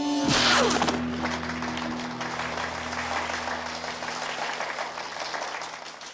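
A sharp strike sound about a third of a second in, then a crowd of onlookers applauding, under a held music note. The applause fades out near the end.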